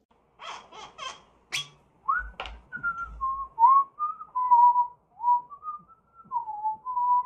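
A person whistling a wandering, unhurried tune. Before the whistling starts, a few short rustling scrapes and a sharp click as a glass bottle's cap is twisted off.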